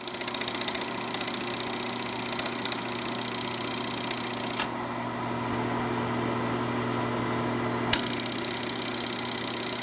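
Film projector running: a steady motor hum with the fast, even clatter of the film being pulled through the gate. There is a sharp click near the end.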